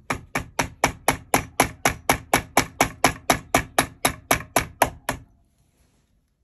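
A hammer tapping a steel pin punch in quick, even strokes, about four a second, driving a barrel pin out through the wooden stock of an Ardesa Pennsylvania percussion long rifle. The tapping stops about five seconds in, once the pin is through.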